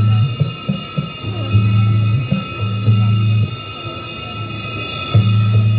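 Aarti devotional music with bells ringing. A deep sustained note comes and goes in phrases and drops out for over a second past the middle.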